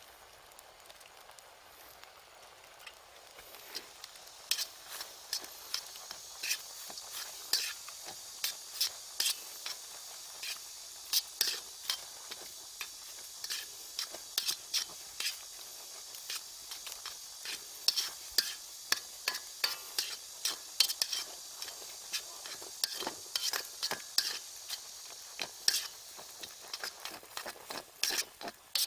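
Food stir-frying in a pan: a steady sizzle that starts about four seconds in, with a utensil repeatedly clacking and scraping against the pan as it is stirred.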